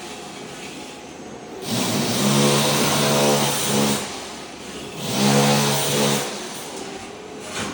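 Ride-on floor scraper stripping thin-set tile mortar off a concrete slab: its motor drones steadily and the blade scrapes loudly in two stretches, one of about two seconds and a shorter one after a brief easing.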